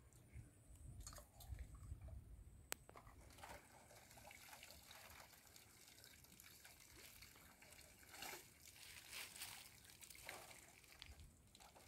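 Faint water trickling and dripping around a large bamboo-framed lift net as it is worked over the water, with a single sharp click about three seconds in.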